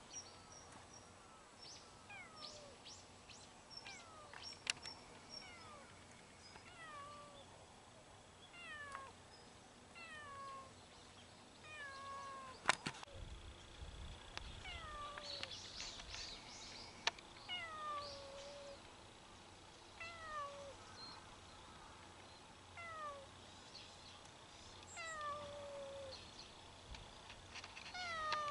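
Orange-and-white cat meowing over and over, short meows that slide down in pitch, about one a second. A sharp click about halfway through.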